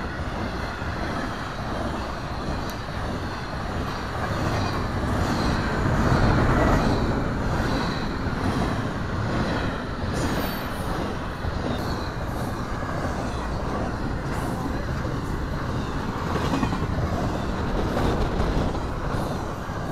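Florida East Coast intermodal freight train, with double-stack containers and highway trailers on flatcars, rolling steadily past the grade crossing: continuous wheel-on-rail noise and rattling cars, with faint scattered clicks, swelling a little about six seconds in.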